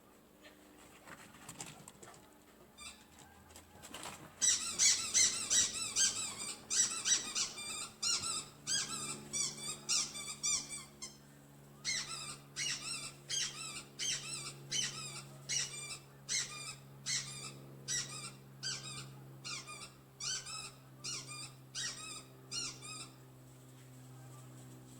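A puppy giving a long run of short, high-pitched squeaky yelps and whines, thick and fast at first, then settling to about two a second before stopping near the end.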